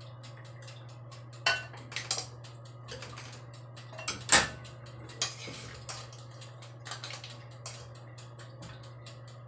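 Metal spoon clinking and scraping in a stainless steel wok as cooked clams in coconut broth are scooped into a glass bowl. It makes a string of sharp, irregular clinks, the loudest about four seconds in, over a steady low hum.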